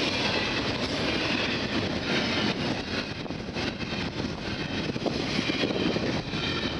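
Double-stack container train's well cars rolling past: a steady rumble and roar of steel wheels on rail.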